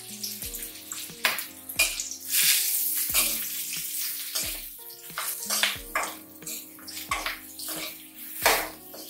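Steel spoon scraping and knocking against an aluminium kadai as onion and capsicum are stirred and fried, a series of short scrapes and taps. Background music plays throughout.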